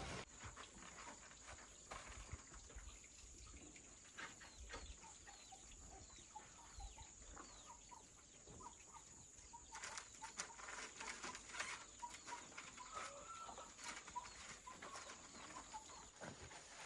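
Faint farmyard calls: hens clucking in short repeated notes and small birds chirping, with a few light knocks.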